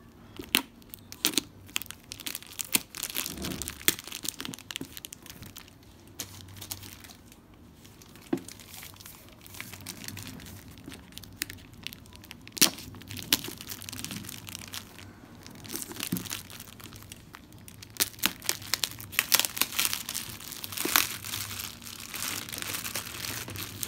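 Plastic courier bag crinkling and rustling as it is slit and torn open with a small knife, with many sharp crackles and snaps. The crackling grows busier near the end.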